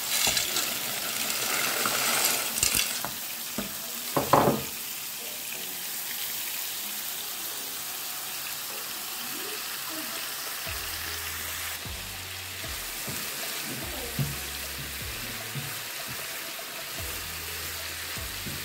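Chicken cubes sizzling as they fry in oil in a nonstick frying pan, with a spatula stirring them. In the first few seconds dry penne pasta is tipped into a pot of boiling water, and there is a sharp knock about four seconds in.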